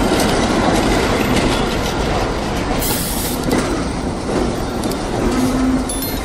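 Subway train running into a station: a continuous rumble of wheels on track, with a brief high hiss about three seconds in and a steady low tone near the end.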